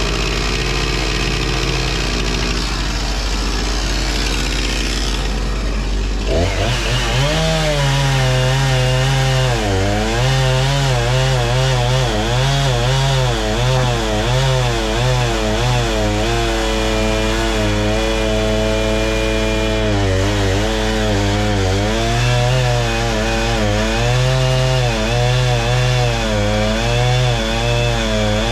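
An engine runs steadily, then about six seconds in a chainsaw starts cutting wood, its pitch repeatedly dipping and recovering as it loads up in the cut.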